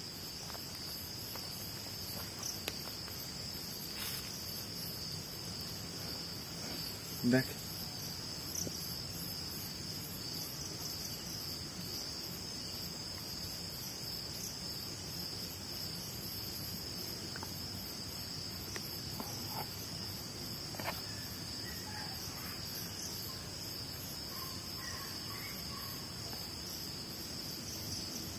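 Crickets and other night insects chirring steadily at a high pitch, with one brief thump about seven seconds in.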